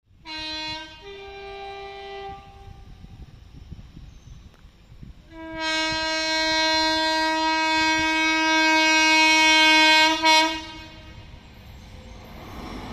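WAG-9HC electric locomotive's air horn on an approaching freight train: a short blast that steps up to a higher, fainter note, then a few seconds later a long blast of about five seconds, the loudest sound, which stutters briefly as it ends. The rumble of the train grows near the end.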